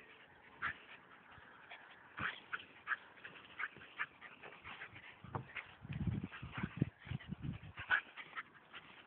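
Two small dogs, a bichon frise and another white dog, play-fighting, with short high yips and whimpers scattered throughout. A run of low rumbling sounds comes in the middle.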